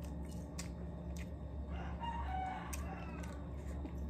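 A faint, drawn-out animal call lasting about a second and a half, starting about two seconds in, over a steady low hum, with a few light clicks.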